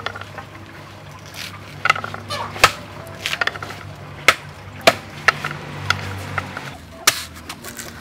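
Small, sharp clicks and snaps, about one every half-second to a second, as fresh lotus seeds are split open by hand.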